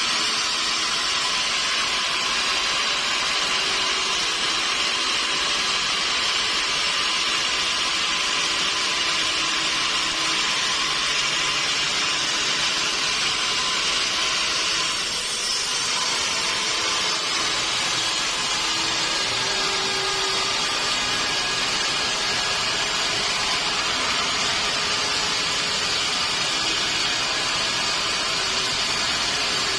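Sawmill saw running steadily through a mahogany log, a continuous high-pitched cutting noise that dips and shifts briefly about halfway through.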